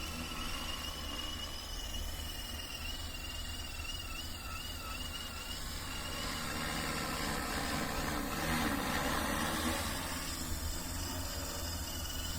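Agricultural spraying drone's rotors humming steadily, the sound swelling louder about two-thirds of the way through and easing off again near the end, with a thin high insect-like trill early on.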